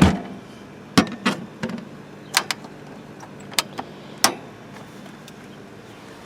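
Norcold 12-volt fridge compressor humming steadily, with a scattering of sharp clicks and knocks from handling over the first few seconds.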